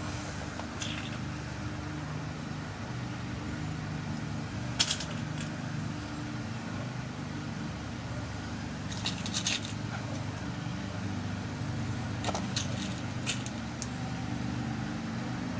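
Small metal lock pins clicking as they are dropped into a pin-tumbler lock cylinder to rekey it: a single click about five seconds in, a quick cluster around nine seconds, and several more near the end. A steady low hum runs underneath.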